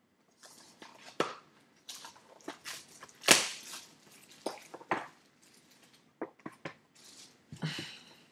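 Clear plastic shrink wrap being torn and crinkled off a trading card box, in irregular crackles and rips, the loudest rip a little over three seconds in.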